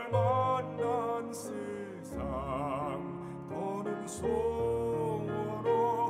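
A classical male baritone singing a slow Korean art song in long, vibrato-laden phrases over instrumental accompaniment.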